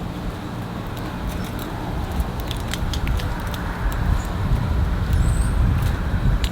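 Steady low rumble of distant road traffic, with a few faint high ticks and a short high bird chirp about five seconds in.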